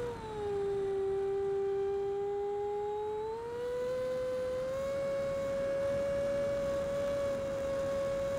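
80 mm electric ducted fan of a Freewing Avanti model jet whining, heard from on board. Its pitch drops just after the start as the throttle is eased, holds lower for about three seconds, then climbs back in two steps and holds steady.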